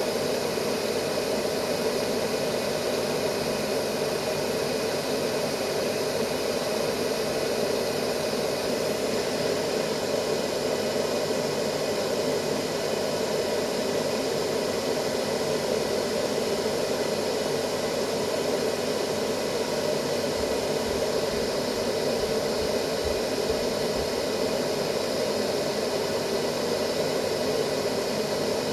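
Steady white noise for lulling a baby to sleep: an even, unchanging rushing hiss, fullest in its lower-middle range.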